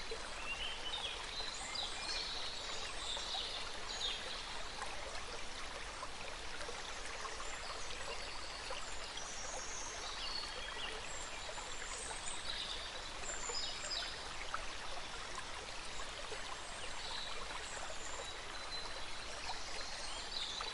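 Steady rush of flowing stream water, with short, high bird chirps scattered throughout.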